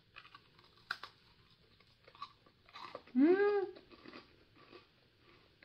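Biting into a crisp peanut senbei cookie, with a sharp crack about a second in, then crunchy chewing. A little after three seconds a closed-mouth 'mmm' hum rises and falls in pitch over the chewing.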